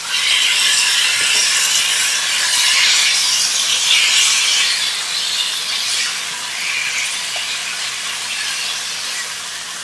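Raw boneless chicken pieces sizzling loudly in hot oil and ginger garlic paste as they go into the pan. The sizzle starts suddenly and slowly dies down.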